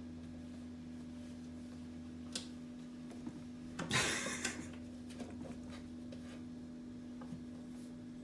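A steady low hum under a few light clicks, with a brief scuffing rustle about four seconds in as a cat shifts and paws inside a small kitchen shelf cubby.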